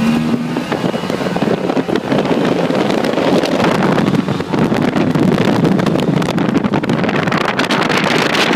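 An off-road vehicle driving over rough ground, its running mixed with wind buffeting the microphone and many small knocks and rattles from the bumpy ride, which get more frequent near the end.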